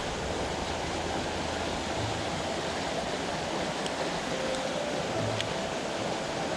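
Mountain stream rushing over rocks: a steady flowing-water sound.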